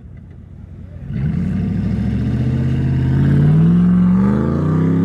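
4x4 engine revving hard under full throttle on a sand-dune climb, starting about a second in. Its pitch rises steadily as it pulls, and it is loudest in the last couple of seconds.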